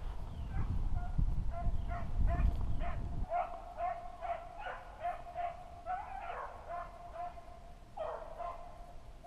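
Beagles baying on a running rabbit's trail, short calls repeating two or three times a second, at times two voices overlapping. A low rumble underneath stops suddenly about three seconds in.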